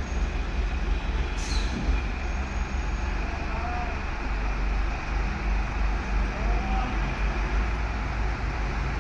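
Lathe machine running with a steady low mechanical rumble and a brief hiss about a second and a half in.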